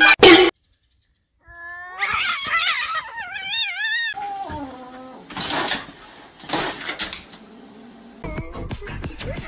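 Cats yowling: long caterwauling calls whose pitch glides and wavers into a fast warble. Then two short harsh noisy bursts about a second apart, and a run of small clicks near the end.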